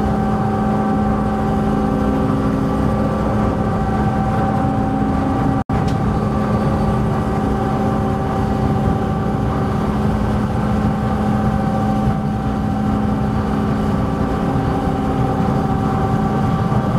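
BC Ferries MV Queen of Cumberland's engines running steadily underway, a loud even drone with a steady hum, heard on the vehicle deck. The sound cuts out for a split second about six seconds in.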